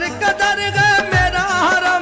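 Qawwali song: a singer holds a wavering, ornamented line over a steady beat of low drum strikes.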